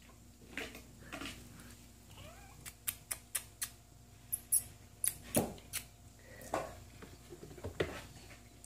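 Four-and-a-half-week-old Balinese kittens giving a few short, squeaky mews as they wrestle, with a quick run of sharp clicks about halfway through.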